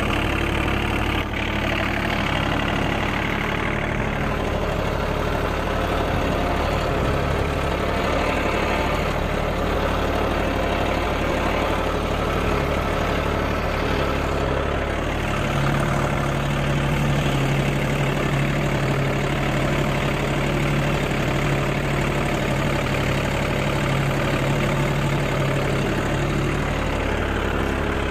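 Diesel engine of a John Deere 3036EN compact tractor running steadily while pulling a cultivator through the soil. A little past halfway its low hum grows stronger for about ten seconds, then eases back near the end.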